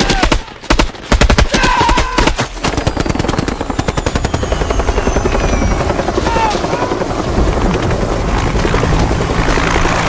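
Rapid automatic gunfire for the first few seconds, then a UH-1 Huey helicopter's rotor chop takes over, fast and steady, with a low engine hum growing near the end.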